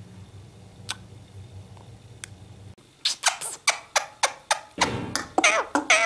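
A quick run of kissing smacks and squeaky chatter, about four to five a second, begins about three seconds in, from a man and his Indian ringneck parakeet. Some of the later ones slide down in pitch like short squeaks. Before that there is only a faint low hum with a couple of small clicks.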